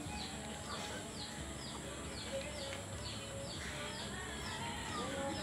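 A bird calling over and over, short downward chirps repeated about two to three times a second, over a steady high hiss.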